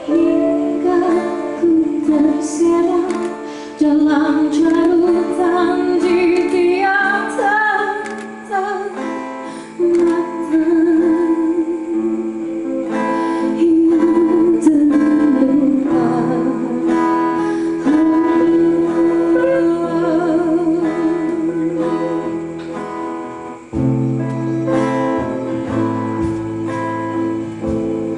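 Live band music: acoustic and electric guitars playing under a singing voice that wavers with vibrato on held notes. Lower notes join the accompaniment near the end.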